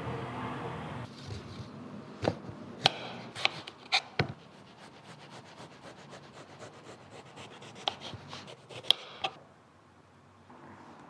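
A steady machine hum cuts off about a second in, followed by sharp clacks and knocks of cafe utensils and cups being handled, in two clusters with light rapid ticking between.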